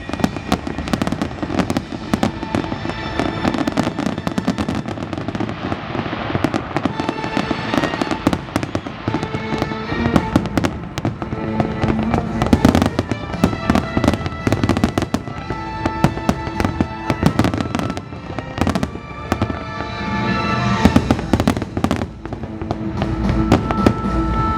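Fireworks going off in rapid, irregular bangs and crackles throughout, with music playing at the same time.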